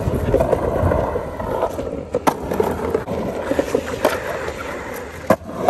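Skateboard on hard wheels rolling over skate park concrete, a steady rolling noise broken by three sharp clacks.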